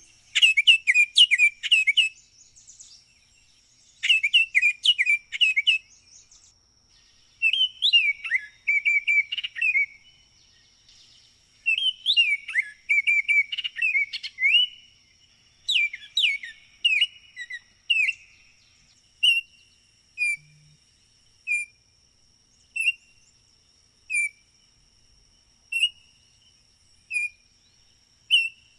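Baltimore oriole singing short phrases of rich whistled notes, each about two seconds long, with brief pauses between them. From about two-thirds of the way through it switches to single whistled notes repeated about every second and a half. A faint steady high-pitched tone runs in the background.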